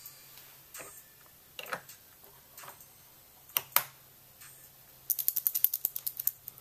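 Scattered sharp clicks, two louder ones near the middle, then a fast run of about a dozen ratchet-like clicks lasting just over a second, near the end.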